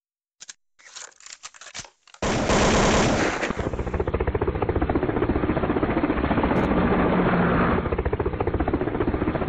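Sustained machine-gun fire: a few quieter scattered shots, then a loud, rapid, unbroken stream of automatic fire that starts suddenly about two seconds in.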